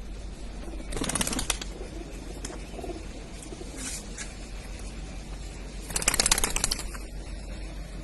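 Caged birds with two short bursts of wing flapping, about a second in and again around six seconds in, over faint low calls.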